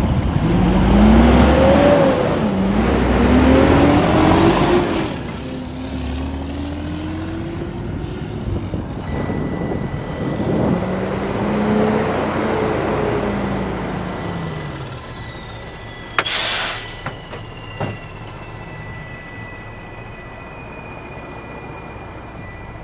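Semi truck's Mercedes diesel engine pulling through the gears, its pitch climbing and dropping several times, then easing off. About 16 seconds in comes a short sharp hiss of air brakes being set, and the engine then runs at idle with a whine slowly falling in pitch. The truck is down on power with its check engine light on, which the driver puts down to clogged fuel filters.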